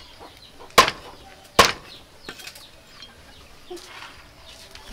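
Two sharp cleaver chops through grilled duck into a wooden chopping board, a little under a second apart, followed by quieter handling noises.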